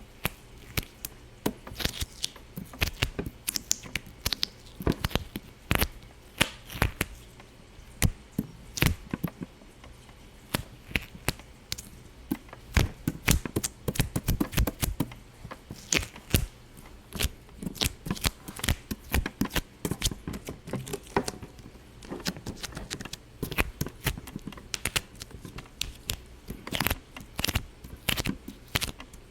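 Irregular sharp pops and clicks, several a second and varying in loudness, with no steady rhythm.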